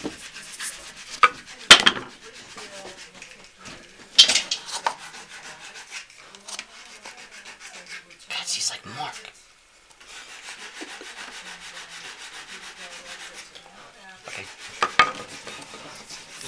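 Wooden chair parts and a small hand tool being handled on a wooden workbench while epoxy is spread into the joints. A few sharp knocks and clacks, the loudest about two seconds in, with rubbing and scraping between them.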